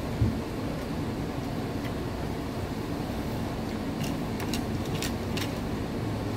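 A plastic spoon's paper sleeve crinkling in a few short crackles as it is torn open, about four to five and a half seconds in, over a steady low room hum. A dull thump comes just after the start.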